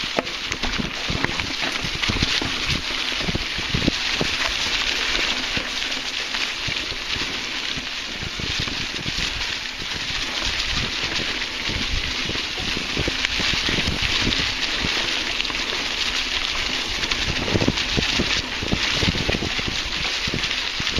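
Mountain bike tyres rolling over dry fallen leaves on forest singletrack, a steady crackling rustle, with frequent irregular low knocks and thumps from the bike jolting over bumps and the hand-held camcorder being jostled.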